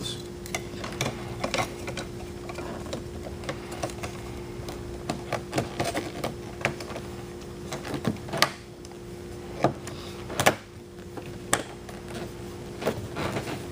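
Plastic clicks and knocks as the door handle bezel is worked into the door panel and its clips are pushed onto their mounts, with a few sharper snaps about eight, ten and a half and eleven and a half seconds in.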